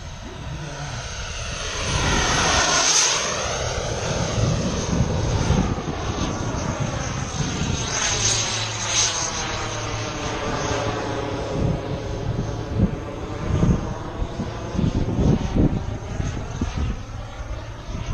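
Elite Aerosports Havoc, a large radio-controlled aerobatic model airplane, flying past with its engine and propeller running, loudest as it passes closest about three seconds in. Gusts of wind buffet the microphone in the second half.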